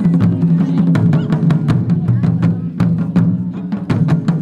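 Japanese taiko ensemble playing: several players strike large barrel drums with wooden bachi sticks in a steady driving rhythm, several sharp strikes a second over a deep booming body.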